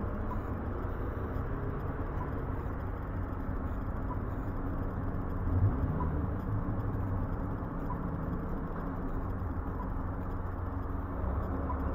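Steady low rumble of distant road traffic and city hum. A faint short pip sounds about every two seconds, the locator tone of a pedestrian crossing signal. A brief low thump comes about halfway through.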